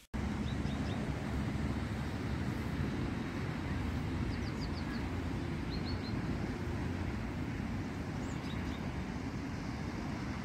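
Outdoor ambience: a steady low rumble, with small birds chirping in short quick runs of high notes several times.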